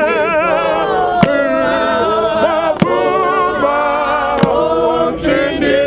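Priests singing loudly, a man's voice with a strong vibrato carrying the melody. A sharp percussive beat lands about every second and a half.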